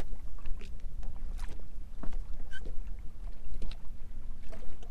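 Choppy water slapping against the hull of a bass boat, with wind rumbling on the microphone and scattered short knocks and splashes.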